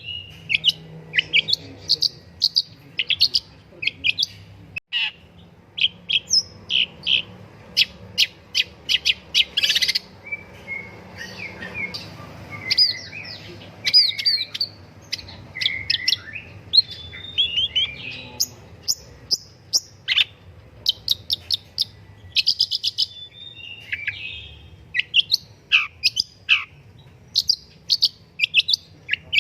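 Long-tailed shrike (pentet) singing busily: a continuous run of sharp, high chirps, short whistled phrases and rapid chattering trills with brief pauses between them.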